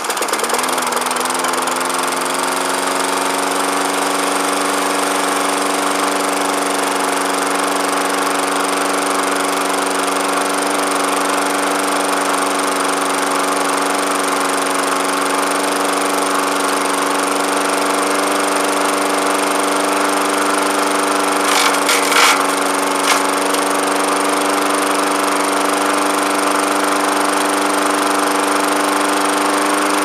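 Push lawn mower's small single-cylinder engine, just started, coming up to speed over the first couple of seconds and then running steadily with its throttle clamped open. About twenty seconds in, a few short sharp cracks as a stick fed through a hole in the deck is hit by the spinning blade.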